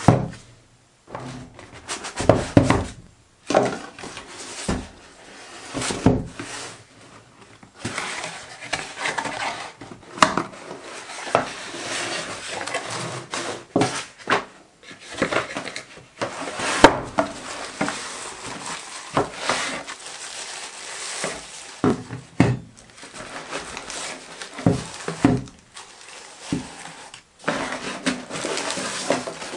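Cardboard box being opened and unpacked by hand on a workbench: the box and its flaps knocking and sliding, and paper and tissue wrapping rustling, with irregular knocks and thuds throughout as the wrapped alarms are lifted out.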